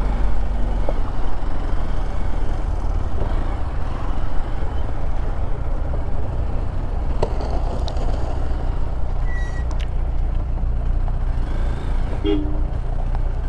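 Vehicle engine running at low revs, a steady low rumble throughout, with a short two-note toot about twelve seconds in.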